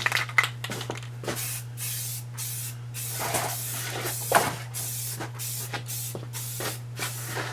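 Aerosol spray can of black paint spraying in a series of short bursts with brief pauses between them, as a bar stool is painted.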